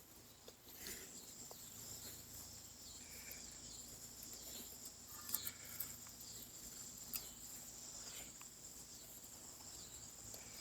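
Faint, steady, high-pitched chorus of crickets, with a few faint clicks and knocks near the middle.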